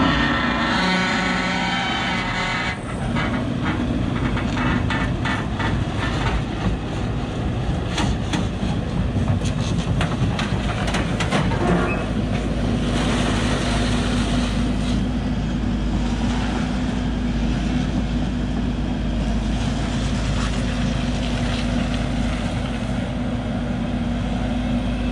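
Crawler excavator's diesel engine running steadily as the machine tracks down off a trailer, with a run of sharp clanks and knocks from its tracks and the trailer deck a few seconds in. The knocking stops about halfway through and the engine keeps running.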